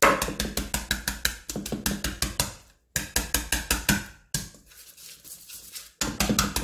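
Wire balloon whisk beating butter and peanut butter in a stainless steel bowl: rapid, rhythmic clinking of the wires against the metal as the butter is creamed. The strokes break off briefly twice, go softer for a stretch, then pick up again near the end.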